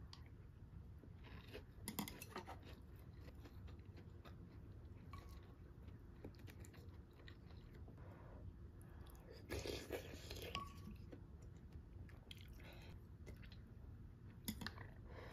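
Quiet eating sounds: chewing mouthfuls of rice and seaweed soup, with a few short knocks of a wooden spoon against the clay pot. The busiest cluster of sounds comes about ten seconds in.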